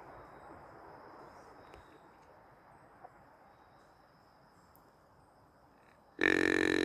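Faint forest ambience with a thin, steady high insect-like tone. About six seconds in, a hand-held deer call sounds loud and steady on one held pitch.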